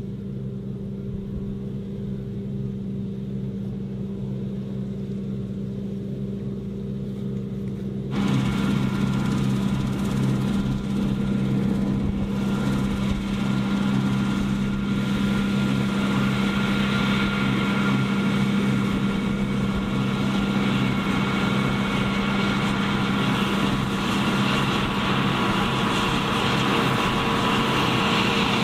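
Diesel engine of John Deere harvest machinery running steadily at a constant speed. About eight seconds in, the sound abruptly gets louder, with more noise over the engine note.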